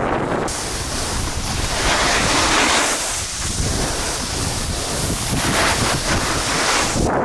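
Snowboard edges scraping and hissing across the snow while carving turns, mixed with heavy wind buffeting on the microphone. The scraping hiss swells twice, with the turns.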